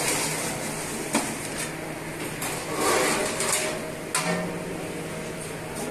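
Large round metal trays clanking and knocking as they are handled, with several sharp clatters over general kitchen noise.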